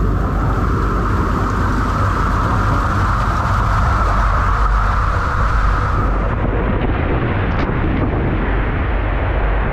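Water rushing and splashing around a rider sliding feet-first down the enclosed tube of a ProSlide ProBOWL 30 body slide, with a loud low rumble from water and motion on the rider-held camera. About six seconds in, as the rider leaves the tube for the open bowl, the hiss drops away and the rushing goes duller.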